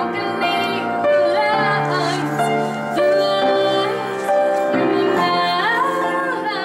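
Music: a woman singing with instrumental accompaniment, held chords under a wavering sung melody.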